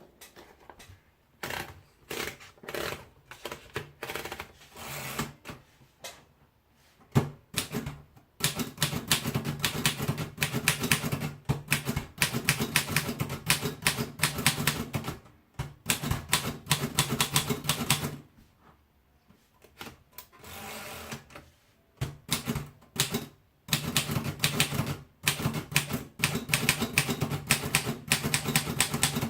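Royal portable typewriter being typed on: scattered single keystrokes at first, then fast runs of key strikes, broken by a pause of a few seconds a little past the middle.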